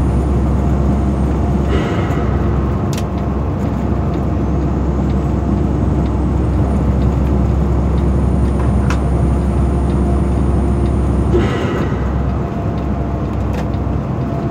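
Steady low engine and road drone inside a truck's cab cruising on the highway, with a few short clicks now and then.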